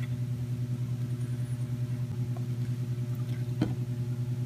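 Steady low hum with a slight rhythmic pulsing, from a motor or electrical appliance running in the room, and a single sharp click about three and a half seconds in.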